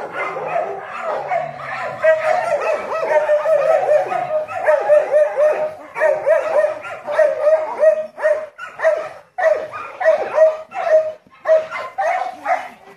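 Dog whining and yipping in a dense run of high, bending calls. About two-thirds of the way through, these break into separate short yips roughly twice a second.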